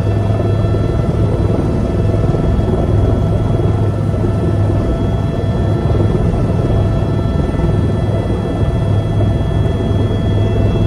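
Helicopter engine and rotor running steadily, heard from inside the cabin: a constant low rumble with a steady high whine over it.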